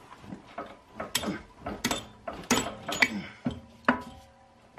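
Irregular metal knocks and clunks, about ten in a few seconds, as a CV axle is wiggled and forced into the transmission without seating, its retaining clip catching.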